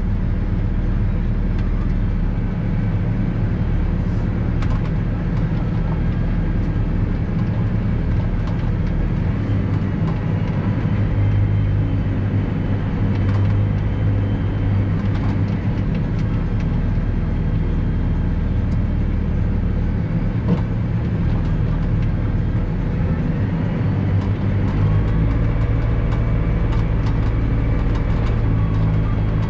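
Valtra 154e tractor's diesel engine running steadily under way, heard from inside the cab as a low drone whose note shifts slightly now and then, with a few light knocks or rattles.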